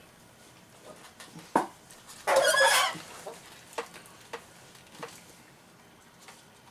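Plastic spoons clicking and scraping in ration pouches and bowls as several people eat, with one brief loud noise of about half a second roughly two and a half seconds in.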